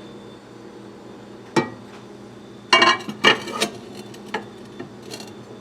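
Microwave door clicking open, then a plate with two raw eggs being set down inside with a short run of clattering knocks, followed by a single click as the door is shut.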